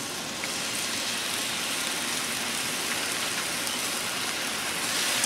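Seasoned, marinated chicken breast strips sizzling steadily on a Blackstone flat-top griddle heated on high, growing a little louder near the end.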